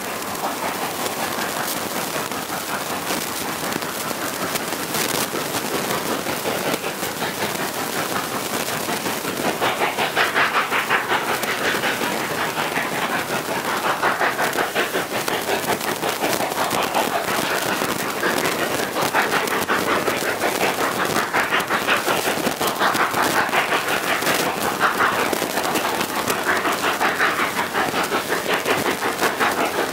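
A double-header of narrow-gauge Baldwin 2-8-2 Mikado steam locomotives chuffing rapidly, their exhaust beats running together into a fast rhythm. The sound grows louder and stronger about ten seconds in.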